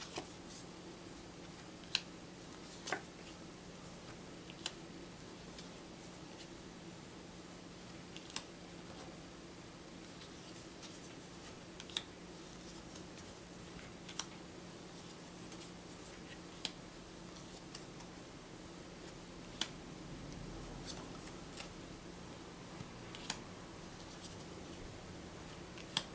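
Thin game cards being flipped off a deck one at a time, a short sharp click or snap every two to four seconds, over a faint steady hum.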